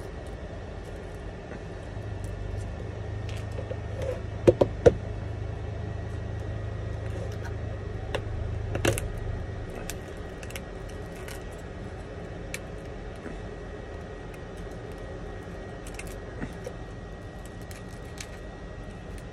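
Laser-loosened back glass of an iPhone 11 clicking and snapping as a hand pick chips it off the frame, with three sharp snaps about four and a half seconds in and another near nine seconds. A low steady hum sits under it for the first half.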